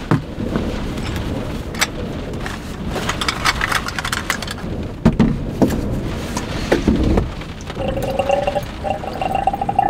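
Strong wind buffeting the SUV and rain drumming on the body, heard from inside the cabin as a steady low rumble, with knocks and clatters of kitchen gear being set down. A steady two-note tone sounds over the last two seconds.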